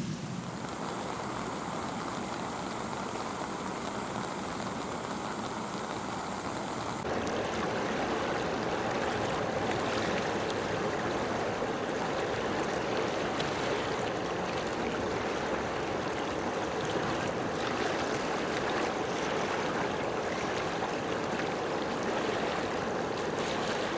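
Steady rushing of running water. It comes in louder and fuller about seven seconds in, replacing a quieter steady background hiss.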